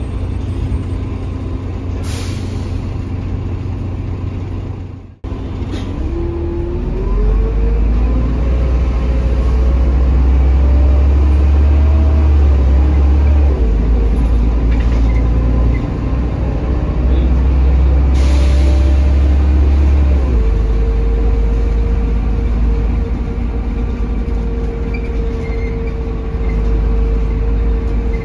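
Inside a Mercedes-Benz OH1830LE bus: the OM926 six-cylinder turbo-diesel and ZF Ecomat automatic gearbox rumble and whine as the bus pulls away. The whine rises for a couple of seconds and then, about 20 seconds in, drops to a steady tone. Two short hisses of compressed air come early on and again near 18 seconds, with a brief dropout in the sound about 5 seconds in.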